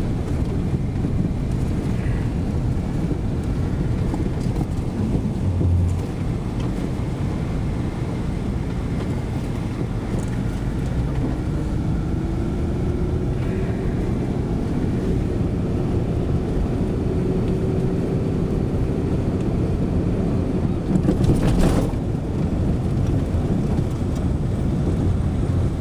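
Car cabin noise while driving: a steady rumble of engine and tyres on the road, mixed with wind. About halfway through, an engine note rises and then holds. A loud jolt or rattle comes a few seconds before the end.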